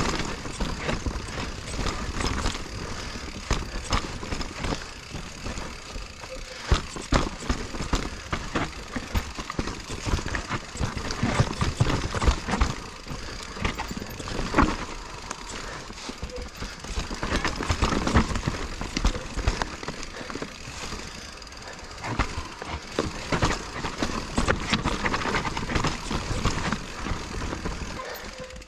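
2021 Giant Reign Advanced Pro 29 full-suspension mountain bike descending a steep dirt singletrack: tyre noise on the trail with frequent knocks and rattles from the bike over bumps, surging louder and quieter with the terrain.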